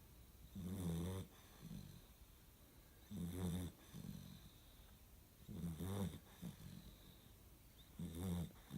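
A pet snoring in slow, regular breaths. About every two and a half seconds there is a low snore, each followed by a shorter, softer one, four times in all.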